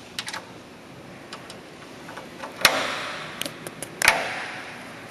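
Small metal clicks and taps of the adjustment on a Waterson glass-door hinge being turned by hand, setting it from 0 to 3, with two louder sharp clicks, one about two and a half seconds in and one about four seconds in.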